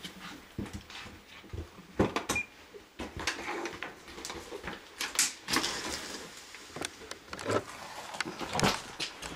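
Scattered knocks and handling noises as a small handheld device is picked up from an old wooden stair and people move about on the bare boards. The knocks are irregular, with the loudest about two, five and a half, and eight and a half seconds in.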